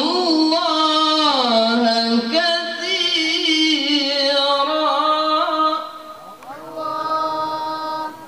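Male qari reciting the Quran in the melodic tilawah style through a microphone: one voice holding long notes with ornamented glides and turns between pitches. The line drops away briefly about six seconds in, then a final note is held and cut off at the end.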